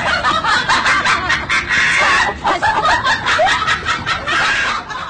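People laughing, with short repeated chuckles and snickers.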